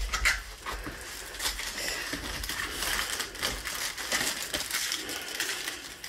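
Plastic packaging crinkling and a rolled canvas rustling as it is unrolled and flattened by hand, then a plastic-wrapped strip of bagged diamond drills crinkling as it is picked up. Irregular rustling throughout, with many small clicks.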